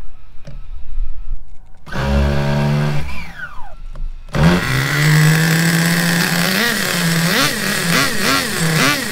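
Traxxas Nitro 4-Tec RC car's small two-stroke glow (nitro) engine being started. A couple of seconds of a lower cranking sound come first. The engine catches about four seconds in, runs at a high steady buzz, then is revved in repeated short blips.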